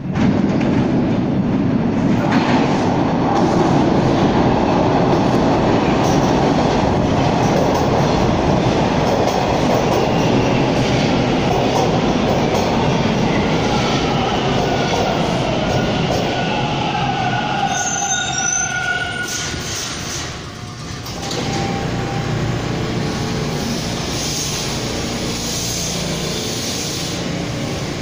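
A T1 subway train pulls into the station, running loudly along the platform. As it slows it gives a whine that falls in pitch, and it comes to a stop about 20 seconds in. After that the stopped train hums steadily.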